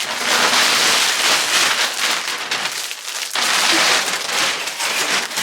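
Packaging crinkling and rustling as a present is unwrapped by hand, in two long stretches with a short pause about three seconds in.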